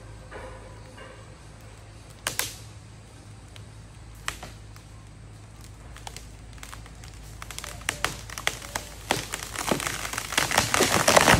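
Wood and branches cracking and snapping as a cut tree gives way: a few scattered sharp cracks at first, then a quickening run of louder cracks and crackling near the end.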